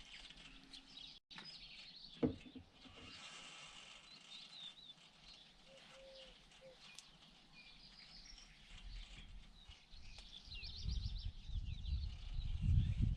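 Small birds chirping and twittering in the open air, with a short sharp knock about two seconds in. An uneven low rumble builds over the second half.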